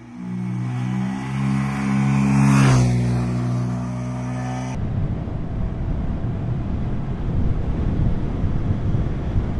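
Honda Grom's 125 cc single-cylinder engine passing close by at a steady throttle, getting louder and then dropping in pitch as it goes past about two and a half seconds in. About five seconds in, the sound cuts to a steady rush of wind over the microphone of the riding bike.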